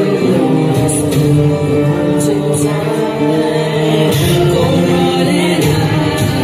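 Music with a singing voice holding long, steady notes, with a few short percussive hits.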